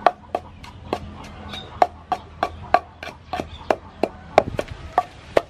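Wooden pestle pounding chilies, garlic and sugar in a wooden mortar: a steady run of knocks, about three a second, working them into a chili paste for sauce.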